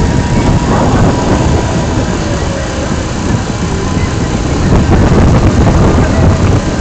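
Loud, gusting low rumble on an open boat: wind buffeting the phone's microphone over a boat engine running.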